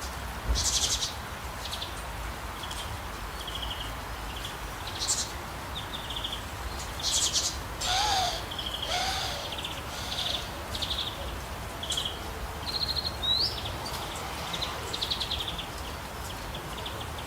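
Several songbirds chirping and trilling in short, quick phrases, one after another, with a pair of lower calls about eight and nine seconds in, over a steady background hiss.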